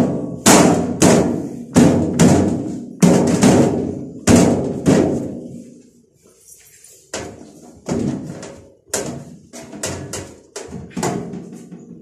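Sheet-metal outer cover of a microwave oven being worked back into place on the chassis: a string of sharp metallic thunks and bangs, each ringing on briefly. They are loud and come about twice a second for the first five seconds, then pause briefly and return as lighter knocks.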